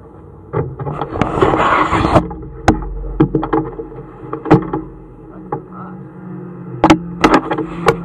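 Fabric rubbing and rustling against a camera's microphone as the cloth covering it is pulled away. This is followed by a series of sharp knocks and clicks from a hand handling the camera, with a faint steady hum underneath.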